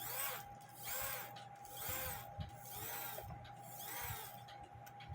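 AMS one-day cuckoo clock movement running on in its cuckoo cycle, the bellows and strike train going over and over about once a second. It will not stop cuckooing because the movement is dirty and its lock lever does not drop far enough. A short knock comes near the end.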